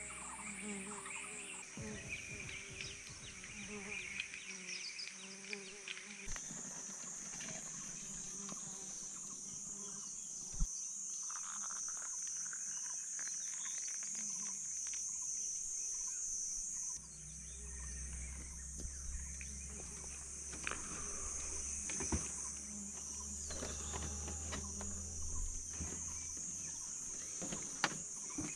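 Steady high-pitched insect drone that wavers slightly and shifts in pitch a few times, with scattered light clicks and knocks.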